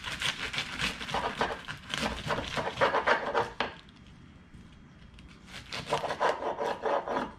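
A butter knife sawing through crisp romaine lettuce leaves on a wooden cutting board, a rapid crunching and crackling with the knife scraping the board. It comes in two bouts, with a pause of about two seconds in the middle.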